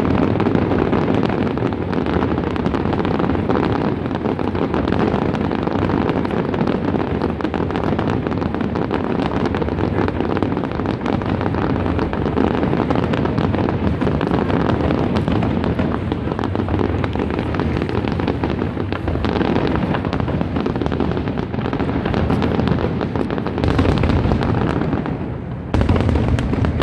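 Fireworks display: a dense, continuous run of bursting and crackling shells, dipping briefly near the end before another loud burst.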